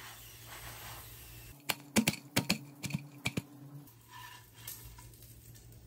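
Crisp cracks and crackles from a fried bun parota being crushed between the hands to break open its flaky layers, a quick irregular run of about eight sharp clicks lasting a couple of seconds.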